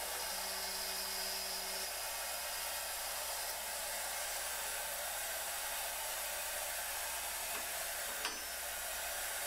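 CNC router spindle cutting aluminum with a small endmill under the steady hiss of an air-driven alcohol-and-water mist coolant nozzle. It is fairly quiet, with a faint hum in the first two seconds and a single click about eight seconds in.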